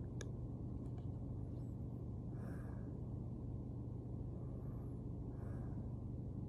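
Soft breaths of a sleeping woman, one about every three seconds, without a clear snore, over a steady low hum of background noise. A faint click sounds near the start.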